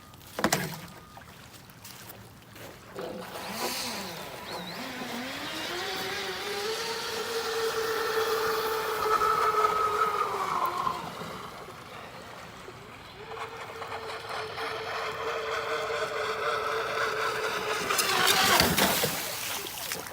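Brushless electric motor of an RC racing catamaran, a Joysway US1 v3, running on the water: a whine that rises in pitch as it speeds up, holds steady, eases off briefly and then comes back steady. A sharp knock comes about half a second in, and a loud rushing burst near the end.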